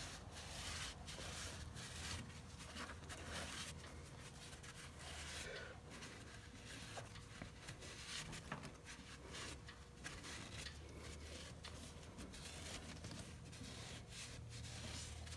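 Faint, irregular rubbing and scraping of a cloth shop rag, damp with brake cleaner, wiping out the valve seats and ports of a flathead engine block.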